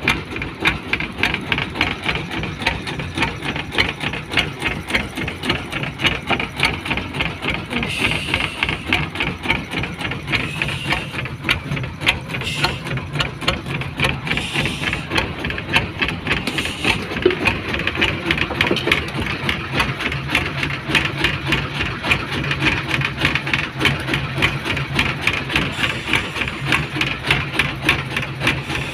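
Small boat engine running steadily with a rapid, even knocking beat.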